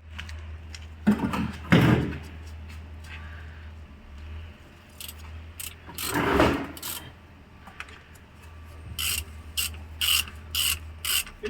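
Mechanical workshop handling noises: a few knocks and rubbing sounds, then a quick run of short, sharp scraping strokes near the end, over a steady low hum.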